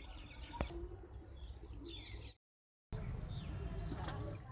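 Small birds chirping and twittering, quietly. Just past the middle the sound cuts out completely for about half a second, and a low rumble with fainter chirps follows.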